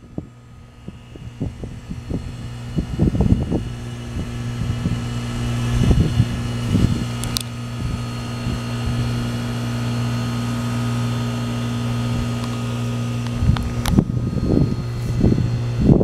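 A 1996 American Standard heat pump's compressor running with a steady low hum during a defrost cycle, the outdoor fan stopped. The hum grows louder over the first few seconds and then holds steady.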